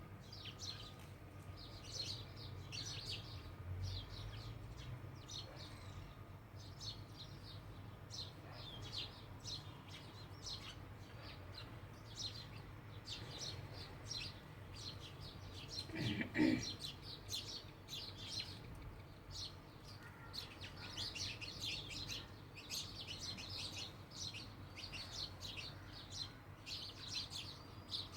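House sparrows chirping in a busy, continuous chatter of short, repeated chirps, with one brief louder sound about halfway through.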